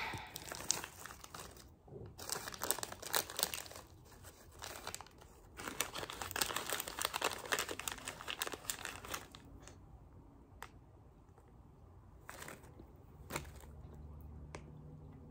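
Plastic candy bag crinkling and rustling as chewy strawberry candies are taken out, in dense crackly bursts for about nine seconds. After that it goes quiet apart from a few scattered faint clicks.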